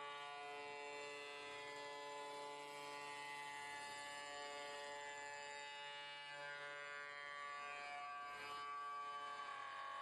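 High-speed spindle of a 5-axis CNC wood milling machine running, most likely cutting wood: a steady buzzing whine made of many even tones, with a brief waver in pitch about eight seconds in.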